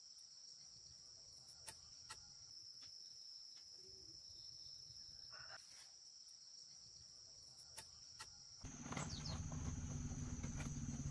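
Insects shrilling in one steady high-pitched tone, with a few faint clicks. About eight and a half seconds in, the tone shifts slightly higher and a louder low rumble joins it.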